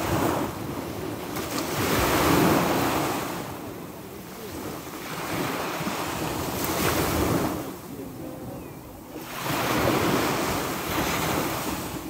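Sea waves breaking and washing on the shore, swelling and ebbing in slow surges every few seconds, with wind on the microphone.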